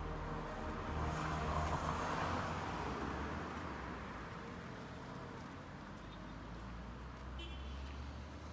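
Street traffic: a car passes by, its tyre and engine noise swelling about a second or two in and then slowly fading, over the steady low rumble of city traffic.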